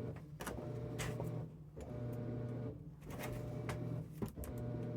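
Cordless drill motor running in short bursts about a second long, with brief breaks and clicks between, as a screw is driven into the wall.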